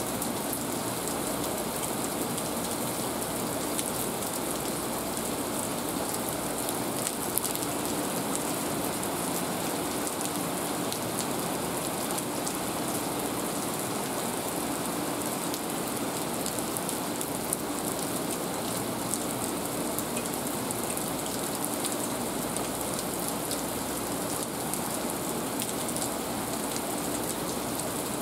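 Heavy rain falling steadily on pavement, a dense even hiss with countless small drop ticks through it.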